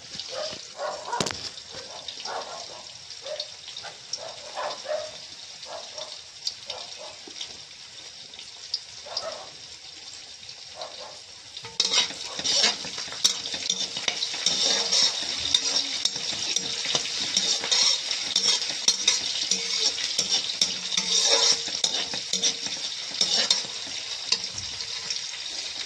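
Onions and whole spices frying in mustard oil in a large thick kadhai. The sizzle is steady, with the clatter of a spatula stirring against the pan, and it turns much louder about halfway through.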